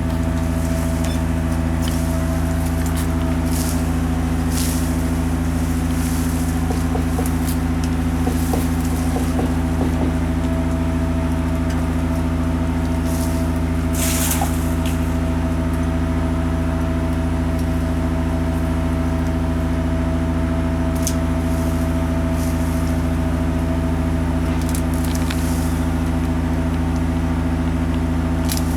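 Tree-trimming boom truck's engine running at a steady speed, a constant unchanging hum, with scattered short crackles over it, the largest about halfway through.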